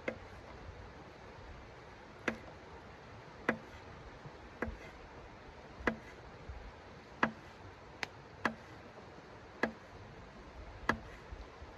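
A series of about ten sharp knocks or ticks, roughly one a second and slightly uneven, over a steady hiss.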